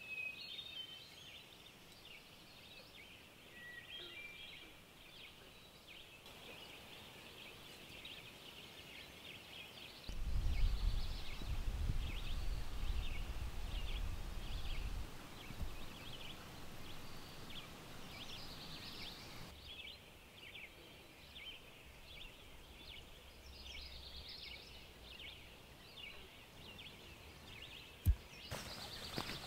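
Outdoor nature ambience: many short, high chirps and trills of wildlife repeating throughout, with a louder low rumble for about five seconds in the middle and one sharp click near the end.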